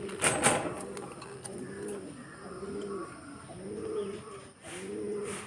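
Jacobin pigeons cooing: a low, rolling coo repeated over and over, with a few sharp clicks near the start.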